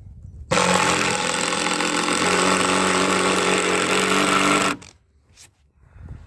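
Ryobi cordless impact driver running for about four seconds, driving a skinny composite-decking screw down into a deck board, then stopping suddenly.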